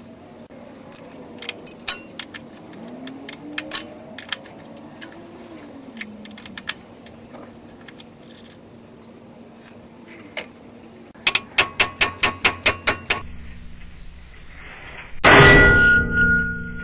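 Metal hand tools clicking and clinking on car suspension hardware. About eleven seconds in comes a rapid run of about ten sharp clicks. Near the end there is one loud metallic clang that rings on briefly.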